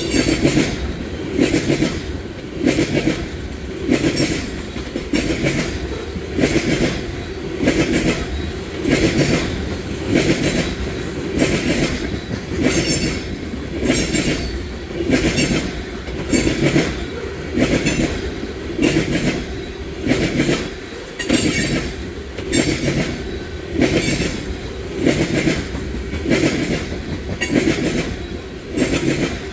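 Freight cars of a loaded oil train rolling past, their wheels clicking over the rail joints in a steady repeating rhythm, about one beat every second and a quarter.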